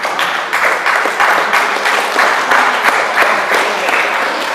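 Audience applauding, a dense run of claps.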